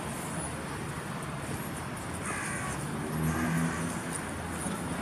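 A crow cawing about two seconds in, followed a second later by a lower, louder sound, over a steady hum of city traffic.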